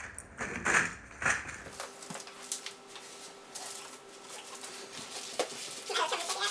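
Wrapping paper and packaging crinkling and rustling as presents are handled, loudest in the first second and a half, then softer scattered handling sounds with a short whimper near the end.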